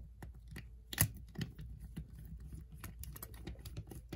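Faint, irregular small clicks and taps of a small screwdriver working a screw and plastic parts on the rear truck of a Tyco Power Torque model locomotive, with a sharper click about a second in.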